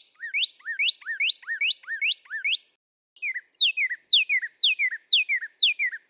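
Northern cardinal singing: a run of quick rising slurred whistles, about two and a half a second, a short pause about halfway, then a series of clear whistles sliding down in pitch.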